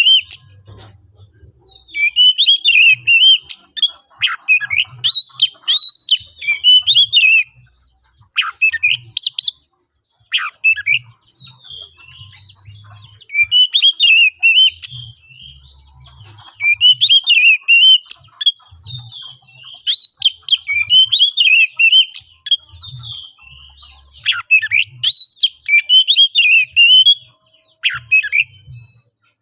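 Oriental magpie-robin singing loudly in fast, varied phrases of whistles and harsh notes, in bursts of one to five seconds with short pauses between. This is its aggressive, highly charged challenge song, the kind that provokes other magpie-robins to answer.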